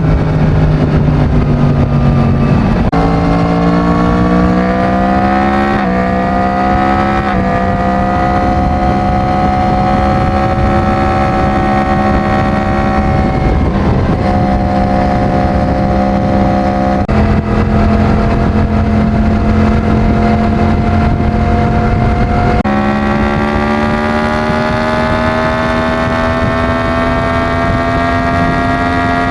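Yamaha MT-10's crossplane inline-four engine on its stock exhaust, running under way. Its note climbs steadily and jumps in pitch several times as the gears change.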